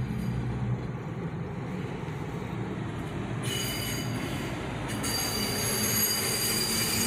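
Hi-rail work truck rolling along the track: its diesel engine runs low, and from about three and a half seconds in a steady high-pitched squeal from its rail wheels on the steel rail comes in and grows louder.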